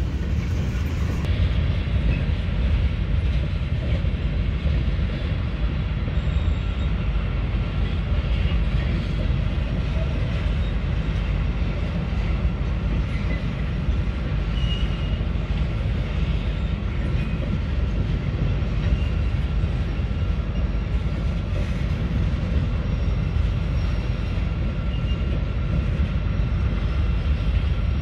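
Freight train rolling through a rail yard, a steady rumble of cars on the track that holds throughout, with heavy wind buffeting the microphone.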